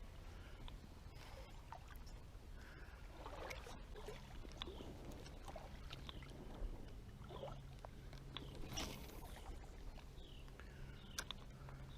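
Faint sloshing and small splashes of shallow creek water, with a louder splash about nine seconds in.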